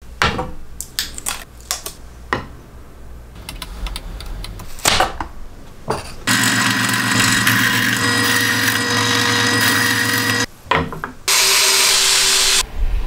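Clicks and knocks of parts being handled, then a power tool running steadily for about four seconds. Near the end a cordless drill driver drives a screw into plywood for about a second.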